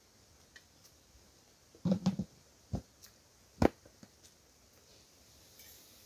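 Scattered handling noises from sitting down on a plastic bucket and handling a plate and fork. There is a short cluster of knocks and rustling about two seconds in, a low thud, then one sharp click, with faint ticks between.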